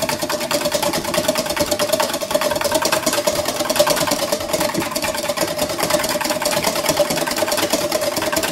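A wire balloon whisk beats raw egg yolks fast in a stainless steel bowl for mayonnaise. The wires clatter against the metal in a quick, even rhythm, and the bowl rings with a steady tone.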